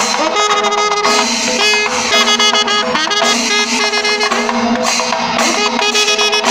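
Panchavadyam temple ensemble playing: timila hourglass drums beaten in quick strokes while kombu horns sound held notes over them.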